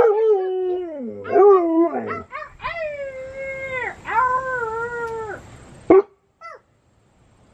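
Husky-type dog howling: a string of long pitched calls that slide down in pitch, the last two held steady for about a second each, cutting off suddenly about six seconds in.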